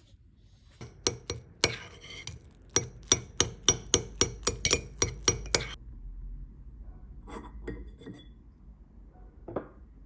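Small glass medicine ampoules or vials clinking against each other as they are handled: a quick run of sharp clinks, about four a second, lasting several seconds, then a few scattered clinks.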